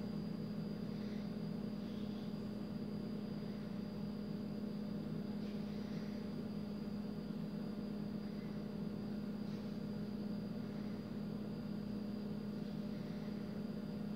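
Steady low electrical hum with a faint high whine over it, unchanging throughout, and a few very faint soft rustles now and then.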